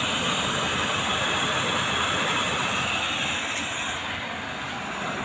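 Homemade used-oil burner stove running with forced air from its blower: a steady rushing roar of fan and flame, the fire burning strong now that the burner has heated up.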